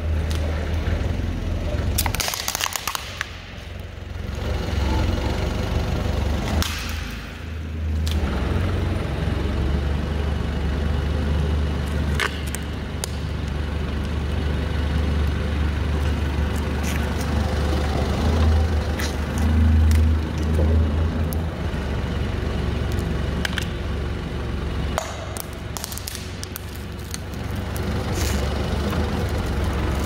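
Forklift engine running with a steady low rumble as its tyres roll over and crush plastic containers and packaging on a concrete floor, giving several sharp cracks and crunches, the loudest a few seconds in and again near the end.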